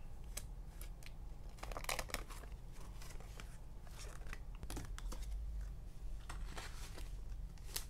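A sheet of stickers and paper being handled: a scattering of short, crisp rustles and crinkles at uneven intervals, over a steady low hum.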